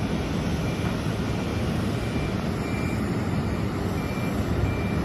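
Steady low rumble of airport ramp traffic, from trucks and ground vehicles moving around a parked airliner. Over it, a faint high-pitched beeper sounds in short beeps about every two-thirds of a second.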